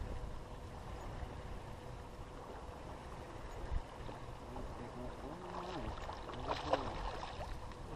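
Steady wind and water noise against the boat, then from about five and a half seconds in a hooked bass splashing and thrashing at the surface as it is reeled in beside the boat, with a faint voice.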